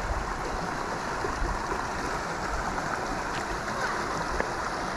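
Shallow rocky stream flowing steadily, with light water sloshing as a hand and a dip net stir the shallows.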